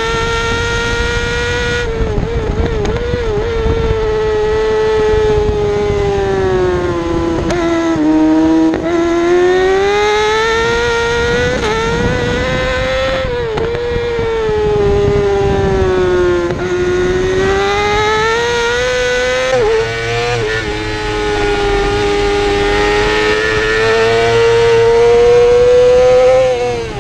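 2017 Yamaha YZF-R6's 600 cc inline-four engine running at high revs under race load, its pitch falling and rising several times as the bike runs through corners and onto the straight.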